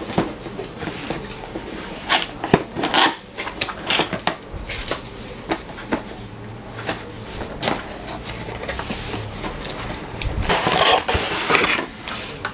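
Cardboard headset box being opened by hand: the lid flap and tab pulled open with scattered knocks, clicks and scrapes, then a longer rustling scrape near the end as the inner packaging slides out of the box.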